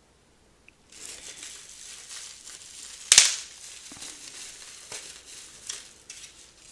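Plastic packing wrap being handled and crinkled as a lighter is unwrapped, starting about a second in, with one sharp louder crackle about three seconds in.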